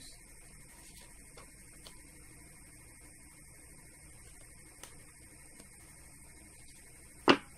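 Steady electrical hum and hiss under a few faint ticks of a tarot deck being fanned and shuffled by hand, then one sharp, loud snap near the end.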